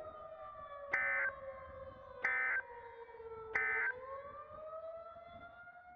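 Three short bursts of Emergency Alert System data tones, the end-of-message signal that closes an alert, about a second and a half apart. Beneath them an outdoor warning siren wails, its pitch slowly falling and then rising again near the end.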